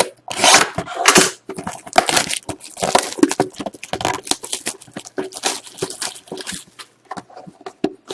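A sealed box of hockey trading cards being torn open: wrapper and cardboard tearing and crinkling in quick irregular crackles, with the foil packs rustling as they are taken out.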